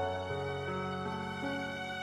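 Slow, sad instrumental music with long held notes and no singing, a new chord sounding right at the start.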